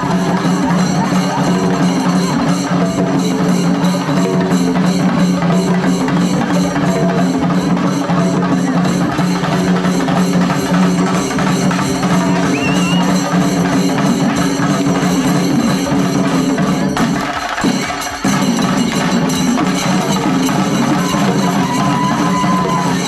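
Shinkari melam ensemble playing: fast, dense chenda drumming over a steady low tone, dipping briefly about eighteen seconds in.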